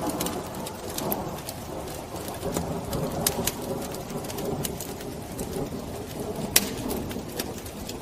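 Wood fire crackling, with sharp pops scattered over a steady lower rushing sound. The loudest pop comes about six and a half seconds in.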